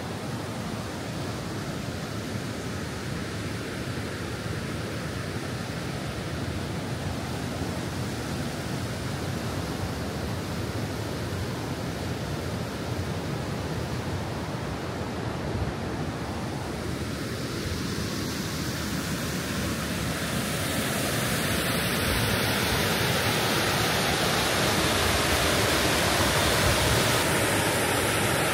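Lynn Creek rushing over rocks and a cascade, a steady hiss of white water. It grows louder and brighter about two-thirds of the way through.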